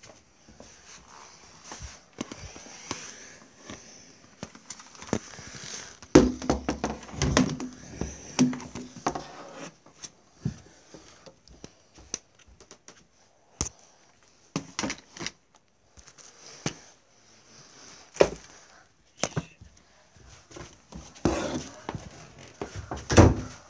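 Scattered knocks, bumps and handling noise of someone moving things about in a small room, with a cluster of louder wooden thumps about six to nine seconds in and a few more near the end.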